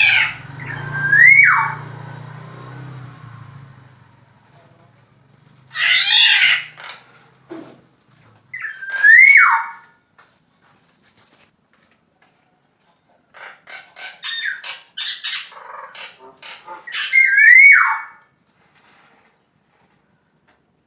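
Male black-naped oriole calling: three times a short fluty whistle that rises and then drops steeply, each near a harsh rasping note, with a run of short chattering notes before the last whistle.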